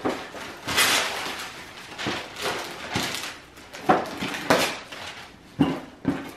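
Gift wrapping paper rustling and tearing off a cardboard toy box in irregular rips, with a few sharper tears about four to six seconds in.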